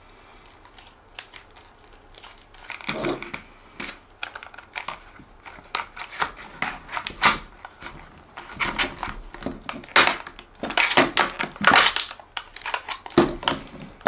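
Clear plastic clamshell blister pack crackling and creaking as it is pried at by hand and cut with a fixed-blade knife. Irregular crackles start about three seconds in and grow louder and denser in the second half.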